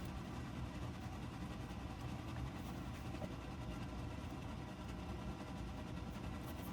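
Steady low hum with no clear events, like a running machine or engine.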